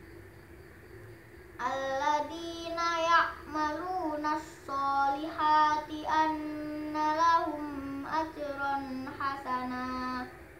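A boy's voice chanting Qur'an recitation in the melodic tartil style: after a pause of about a second and a half, one long phrase of held, gently wavering notes that ends shortly before the end.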